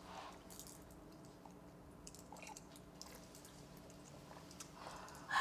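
Quiet room tone with a low steady hum and faint scattered small clicks and rustles. A short, louder breathy noise comes near the end.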